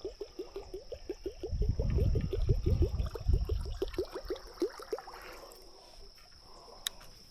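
A frog calling in a rapid series of short pitched notes, about seven a second, stopping about five seconds in. A steady high insect drone runs under it.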